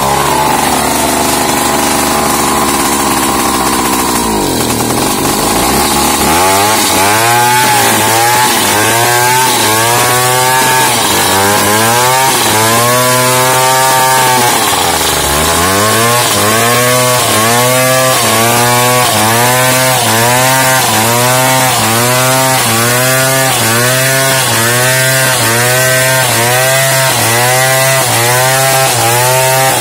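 Large Stihl two-stroke chainsaw ripping lengthwise along a wooden plank. It runs flat out at first, then from about six seconds in its engine pitch rises and falls in a steady rhythm a little over once a second as it works through the cut, with one deeper dip about halfway.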